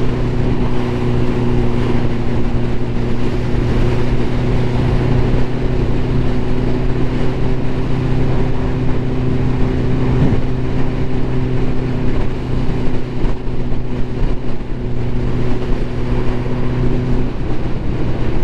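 Ducati motorcycle engine running at a steady cruise under way, over a constant rush of road and wind noise; its note changes shortly before the end.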